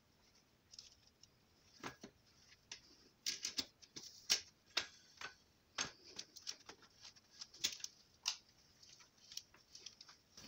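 Faint, irregular light clicks and ticks, several a second at their busiest, from the screw clamp of a household electric tyre vulcanizer being tightened down onto a tyre-sidewall patch.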